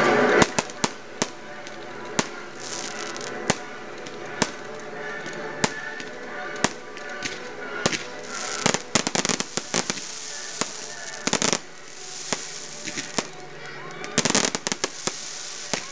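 Fireworks going off: single sharp reports about once a second, with hissing and two bursts of rapid crackling, one about halfway through and one near the end.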